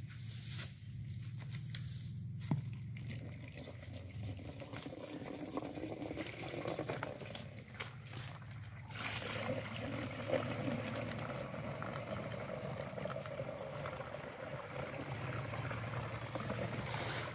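Liquid spray mixture poured from a bucket into a plastic knapsack sprayer tank through its strainer basket: a steady splashing pour that starts about a third of the way in and grows fuller around halfway.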